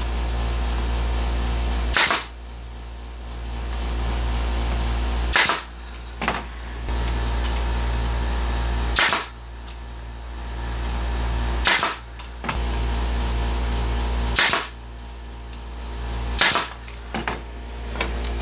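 Pneumatic nail gun firing six single shots, each a sharp crack, spaced two to four seconds apart, over a steady low hum.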